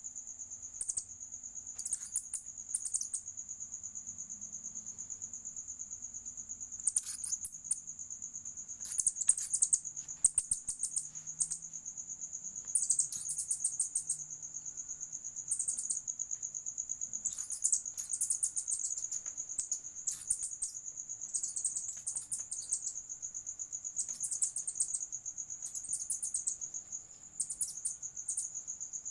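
Steady high-pitched insect trill, like crickets, with repeated short bursts of high chirping over it every second or two.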